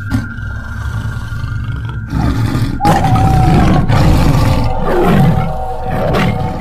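Horror backsound: a low rumbling drone under a steady high tone, joined about two seconds in by a louder, rough growling effect that eases off again near the end.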